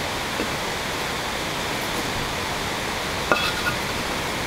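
Steady hiss, with a hollow concrete block knocking down onto another about three seconds in, a brief clack followed by a lighter knock.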